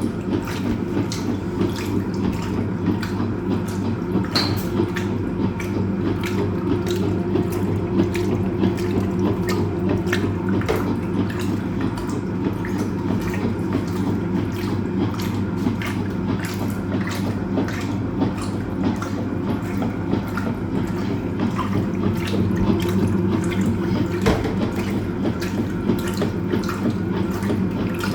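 Hoover Automatic 820 washing machine mid-wash: water churning and splashing in the drum as the impeller at the bottom pushes it round, over the steady hum of the motor.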